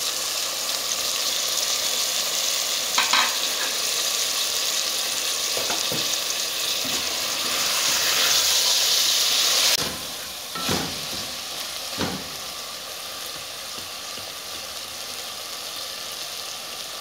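Chopped tomatoes, mint, onions and eggplant sizzling in hot oil in an aluminium pot while a wooden spoon stirs them, knocking against the pot a few times. The sizzle is loud at first and drops off suddenly about ten seconds in.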